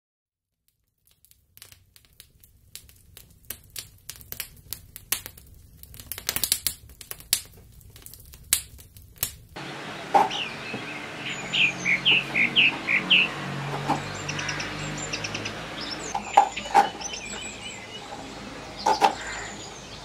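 Irregular crackling clicks for the first half. Then a knife chops drumstick pods on a plastic cutting board, sharp knocks every second or two, while small birds chirp in the background with a quick run of short falling chirps.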